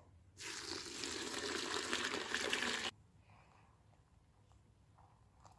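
Water poured into a bucket of dried, chopped madder root: a steady rush that cuts off abruptly about three seconds in.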